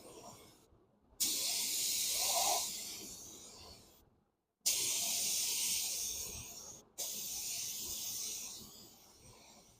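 Paint being sprayed onto a scuffed alloy wheel: three hissing sprays, each starting sharply and slowly trailing off, with short breaks of silence between them.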